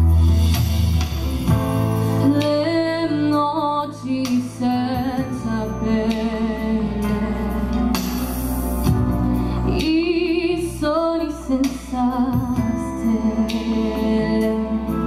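A woman singing a ballad into a microphone over instrumental accompaniment, her voice amplified and held on long, gliding notes.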